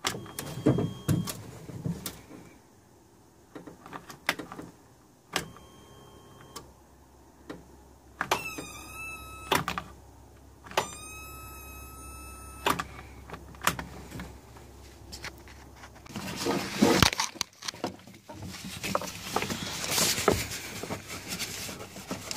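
Cold start of a 2009 Polaris RZR 800S in sub-zero cold: clicks from the key switch, then two short high whines from the electric starter, about a second and a half and two seconds long, followed later by a louder, rougher stretch of cranking. The starter is struggling because water inside it froze, as the owner believes.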